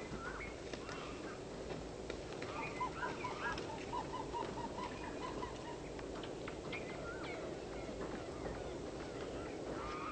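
Small birds chirping and calling, with a quick, even run of about a dozen short notes a few seconds in, over a steady low background hiss.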